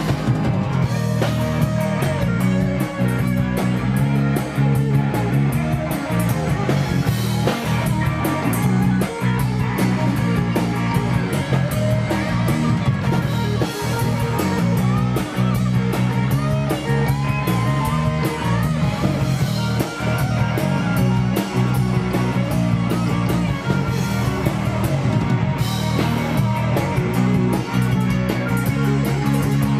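Live rock band playing an instrumental passage with no vocals: electric guitars over bass and drums, with the lead guitar bending notes around the middle.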